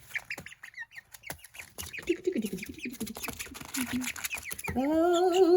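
Young Australorp, Light Brahma and Silkie bantam cross chicken peeping in many short, high chirps. Near the end a person starts humming one long, wavering note, which is the loudest sound.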